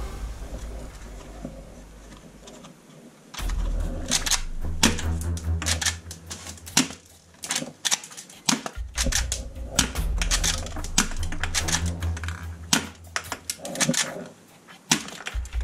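Plastic toy guns clicking and clacking as they are handled and worked: a rapid, irregular run of sharp clicks that starts about three seconds in, over a low steady drone.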